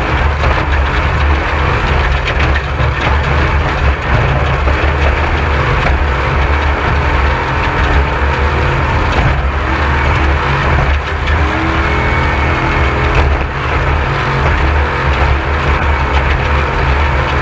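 Off-road race vehicle's engine running loud and steady under way, with a constant low rumble and a rush of noise over it.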